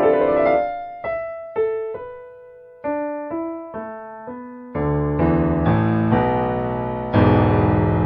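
Slow solo piano music. A held chord fades away, then single notes are played one at a time about every half second, and from about halfway on fuller chords with low bass notes come in.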